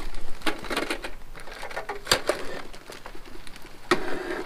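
Irregular clicks, knocks and plastic crinkling as a dial kitchen scale wrapped in a plastic bag is handled and pressed against a bicycle pedal and crank, with one sharp knock about two seconds in.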